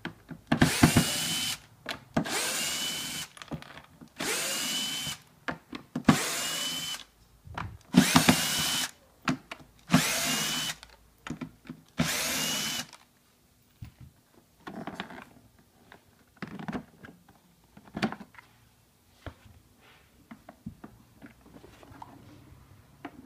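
Drill-driver run in seven short bursts of about a second each, roughly every two seconds, driving the screws of the appliance's plastic housing cover; each burst spins up quickly to a steady whine. After the last burst, scattered light clicks and knocks.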